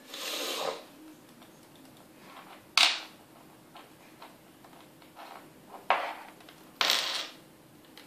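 Coins scraping and clicking on a wooden tabletop as a budgerigar pushes and pecks at them with its beak. There is a short scrape at the start, sharp clicks about three and six seconds in, and another short scrape near the end.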